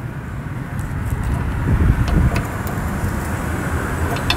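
Steady low rumble that swells briefly about two seconds in, with a few faint metallic clicks and taps of a ratchet wrench turning a spanner tool to tighten a tilt-and-trim cap.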